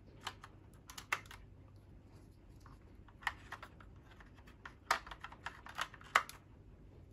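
Irregular sharp clicks and taps of rail covers being pressed onto the rail of an airsoft M4's metal handguard, busiest about five to six seconds in.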